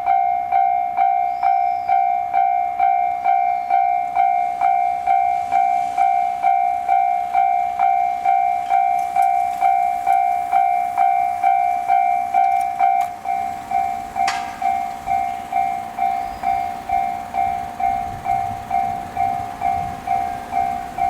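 Japanese level crossing warning bell ringing steadily at about two strokes a second. About two-thirds of the way in, a sharp clank and a rising rumble of a JR Hanwa Line train passing the crossing join the bell.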